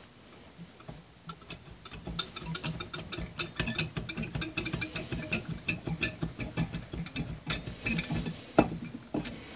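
Honda Rebel 250 twin-cylinder block being worked down by hand over the pistons and cylinder studs: rapid, irregular metal-on-metal clicking and ticking, several clicks a second, starting about a second in.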